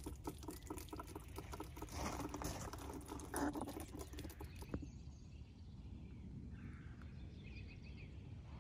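Water dripping off the edge of a freshly power-washed wooden tabletop, a quick irregular patter of drops. About five seconds in the patter stops, leaving a quieter outdoor background.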